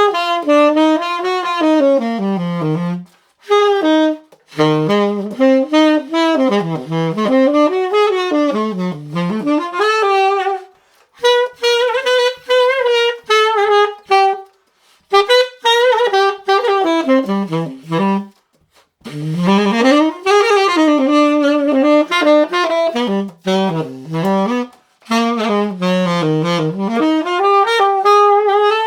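Unaccompanied tenor saxophone playing a jazz melody line, phrases rising and falling with short breath pauses between them.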